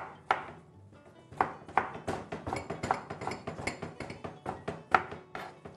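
Kitchen knife dicing a peeled tomato on a wooden cutting board: a run of quick, irregular knife strikes against the board, several a second.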